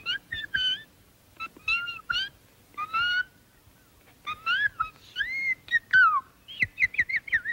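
A tiny cartoon character's very high-pitched voice performing in short, gliding sung phrases with pauses between. Near the end comes a quick run of short notes, about eight a second.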